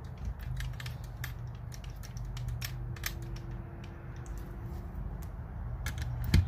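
Banks pneumatic framing nailer being handled, with many small clicks and rattles as its depth-adjust knob is turned and the tool is set against the wood. A steady low hum runs underneath, and a single sharp thump comes near the end.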